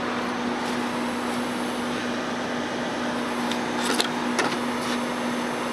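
A steady machine hum with one constant tone in it, with a few light clicks about four seconds in.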